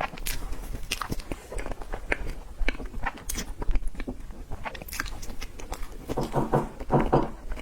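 Close-up sounds of a person eating dessert: a steady run of wet mouth clicks and smacks from biting and chewing, with a denser patch of smacking near the end.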